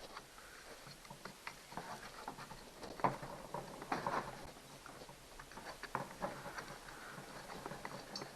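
Irregular small clicks, taps and rattles of chainsaw parts being handled and pried as the Stihl 029's red-orange handle housing is worked loose, with a couple of louder knocks about three and four seconds in.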